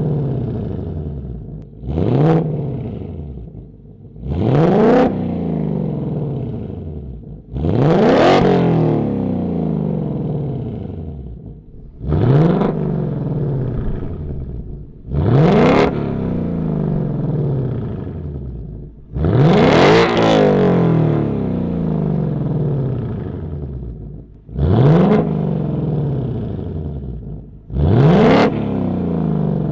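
Ford Mustang Dark Horse 5.0 L Coyote V8, fitted with a combined H- and X-pipe resonator delete, blipped eight times from idle. Each rev climbs quickly and then falls back to a steady idle over a few seconds.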